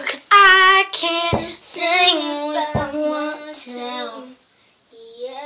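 A child singing loudly in long held notes that step down in pitch, with a short break near the end before another held note. Two dull thumps sound under the singing, about a second and a half apart.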